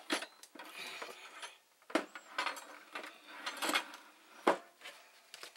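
Dishes being handled: a series of clinks and knocks, a plate being got out, the sharpest knock about four and a half seconds in.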